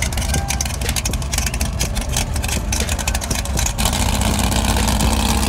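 Classic Chevrolet Chevelle's engine running with a loud, choppy low rumble; its note rises and steadies about four seconds in.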